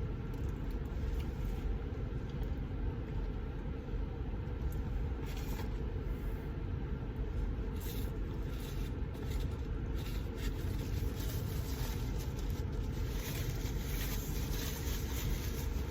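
Steady low rumble of a car idling, heard inside the cabin, with a few faint rustles and clicks over it.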